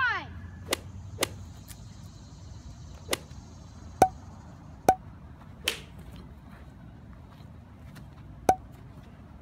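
A run of sharp whacks and swishes, about eight in all, spaced irregularly with the loudest about four seconds in: the blows of a mock fight between children.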